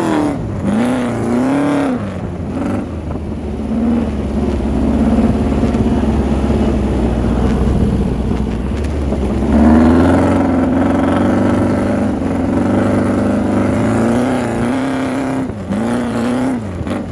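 Dune buggy engine revving as the buggy drives over sand dunes, its pitch swooping up and down several times near the start and near the end and climbing again about ten seconds in.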